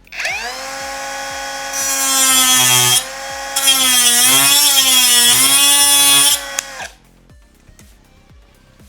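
Angle grinder with a non-diamond disc spinning up with a high whine and cutting into a Dareu "ceramic" keycap twice, each cut adding a hiss of grinding. Its pitch sags and wobbles under load during the second cut. The grinder shuts off at about 7 seconds. The keycap cuts easily and throws dust, which the reviewer takes as a sign that it is lacquered plastic rather than ceramic.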